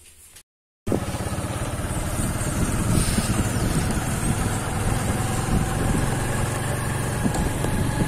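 Motorcycle engine running steadily while riding over a cobblestone street, starting abruptly about a second in.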